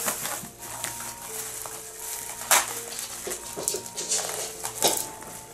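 Clear plastic packaging bag crinkling and rustling as it is handled, in a few sharp bursts, the loudest about two and a half seconds in and again near the end. Soft background music with held notes plays underneath.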